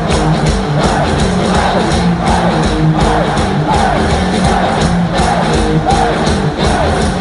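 Loud rock music: a band playing with a steady drumbeat, and a voice singing from about two seconds in, with crowd noise underneath.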